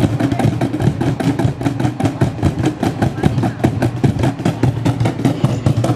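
A group of cajóns played together by hand: wooden box drums struck in a fast, even rhythm.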